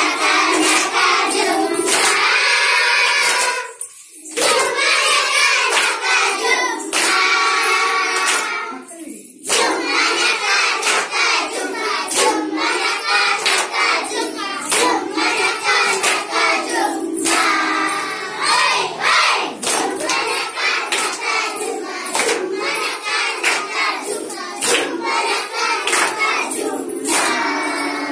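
A group of schoolchildren singing a Kannada song together in chorus, with hand claps over the singing. The singing breaks off briefly twice in the first ten seconds.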